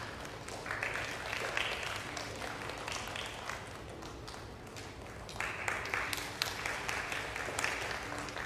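Audience applauding, with many separate claps, swelling twice.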